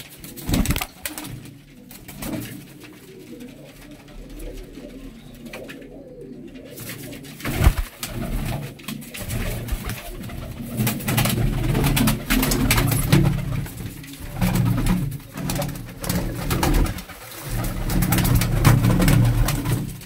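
Several domestic pigeons cooing, the cooing growing louder and fuller about halfway through. Wing flaps and sharp clicks are scattered through it.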